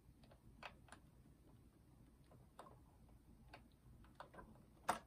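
Faint, irregular small clicks and ticks of wires and plastic parts being handled inside an open boombox chassis, with one sharper click near the end.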